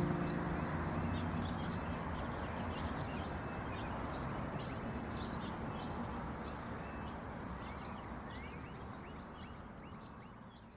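Many small birds chirping over a steady background hiss, with the last guitar chord of a song dying away at the beginning; the whole fades out near the end.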